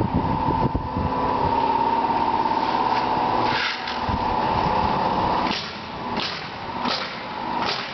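Framing construction noise: a steady mechanical drone with five sharp nailing strikes in the second half, the last four about two-thirds of a second apart.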